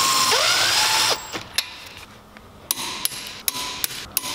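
Cordless power tool spinning a wheel nut down onto a new wheel stud, a steady motor whine that drops in pitch as the nut seats and cuts off about a second in. A series of short, sharp clicks follows.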